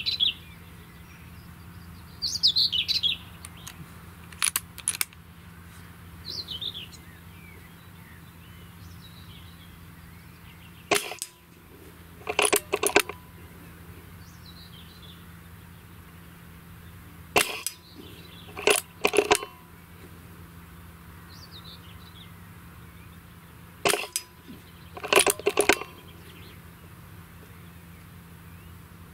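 Three shots from a .22 Brocock Ranger pre-charged air rifle, each a single sharp crack about six seconds apart. Each shot is followed a second or so later by a quick run of metallic clicks as the action is worked for the next pellet. Small birds chirp in the background, mostly in the first ten seconds.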